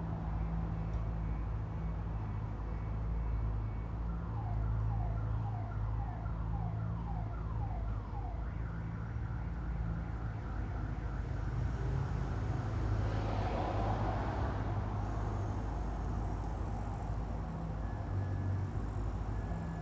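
Street traffic heard from inside a room: a steady low rumble of traffic, with a siren rising in short repeated sweeps, about two a second, for a few seconds a third of the way in. About two thirds through, a louder hiss swells and fades as a vehicle passes.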